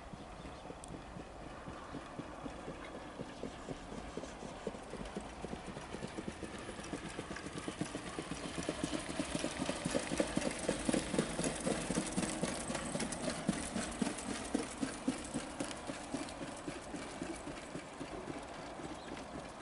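Rapid hoofbeats of two trotters pulling sulkies at speed on a dirt track. They grow louder as the horses pass close, about ten seconds in, then fade as they move away.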